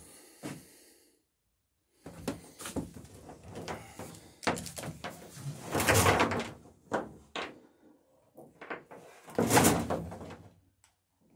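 Irregular knocks and clatter of tools and wood being handled, with two louder, longer rattling scrapes about 6 and 9.5 seconds in.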